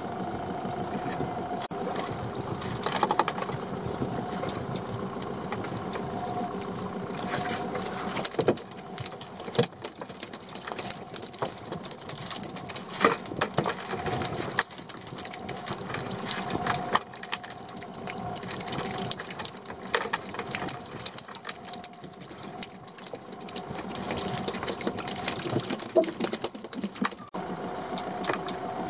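Small boat's engine idling steadily, with scattered clicks and knocks of fishing tackle being handled on deck.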